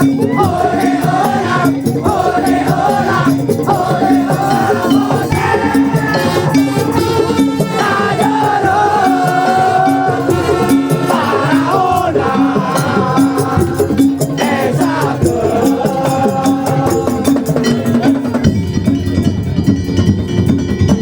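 Madurese daul music: a percussion ensemble playing a steady repeating beat with rattling percussion under a gliding melodic line. The beat pattern changes near the end.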